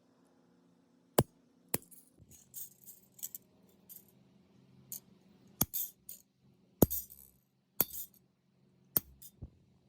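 Small brass and copper metal fittings and hand tools clinking and tapping: irregular sharp metallic strikes, several followed by a brief jingle of loose small metal pieces.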